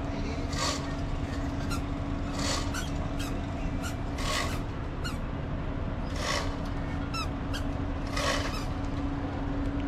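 Steady low drone from the catamaran ferry's machinery, with short rasping squeaks that recur every one to two seconds.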